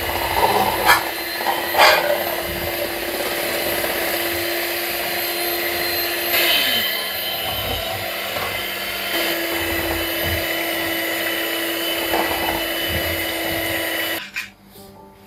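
Electric hand mixer running, its beaters whisking a thin flour-and-water batter in a stainless steel bowl: a steady motor whine with a few clicks in the first two seconds. The pitch drops about six and a half seconds in, comes back up around nine seconds, and the mixer cuts off about a second before the end.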